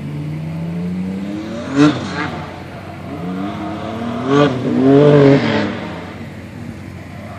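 Turbocharged 3800 V6 in a Chevy Blazer run hard on an autocross course: the engine revs climb and fall repeatedly between corners. It is loudest as it comes close about two seconds in and again from about four and a half to five and a half seconds in, then fades away.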